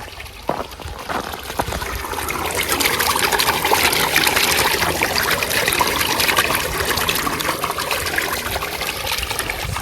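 Running water trickling and splashing, like a small stream or rivulet. It grows louder over the first few seconds and then holds steady.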